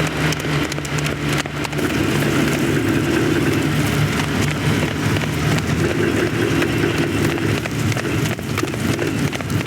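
Steady vehicle engine drone over a rushing noise, with a higher-pitched drone taking over about two seconds in.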